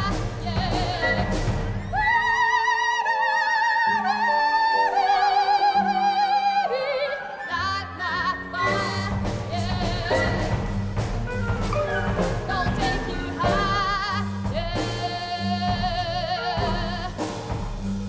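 Contemporary chamber ensemble music with a soprano. She sings long high notes with wide vibrato about two seconds in and again near the end, over repeated low notes and sharp percussive attacks from the instruments.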